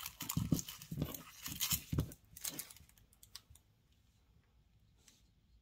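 Thin clear plastic wrapper crinkling and rustling as a tiny fries-shaped eraser is worked out of it. It dies down after about two and a half seconds to a few faint clicks.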